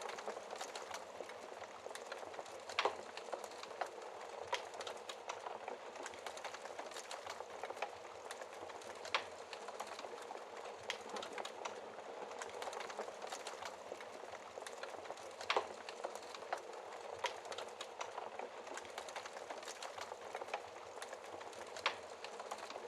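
Wood fire in a fireplace burning with a steady soft hiss and constant small crackles, with a louder pop roughly every six seconds.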